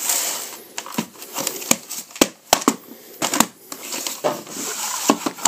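VHS tapes in cardboard sleeves being handled and set down on a laminate floor: a string of clicks and taps with rustling between them, the sharpest two knocks a little past the middle.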